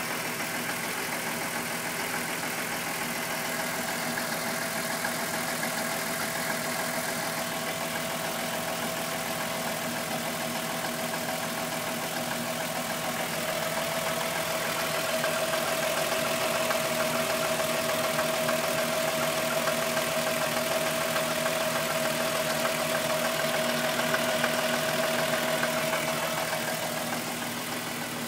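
VW Golf VR6 2.9 narrow-angle V6 engine running steadily, with a rubbing, chain-like noise from the timing chain that grew louder after the upper hydraulic chain tensioner was replaced. A steady high tone in the engine noise grows louder from about halfway through and eases off near the end.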